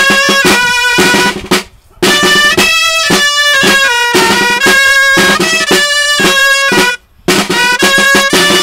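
Two dolçainas playing a bolero melody together over two tabal drums beating the rhythm. The music breaks off briefly twice, just before two seconds in and about seven seconds in.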